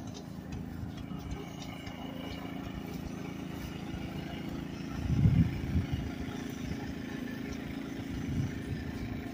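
An engine running steadily in the background, with a louder low rumble about five seconds in.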